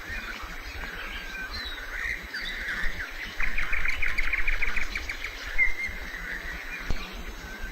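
Songbirds singing: scattered chirps and short whistles, with a fast trill of rapid repeated notes in the middle.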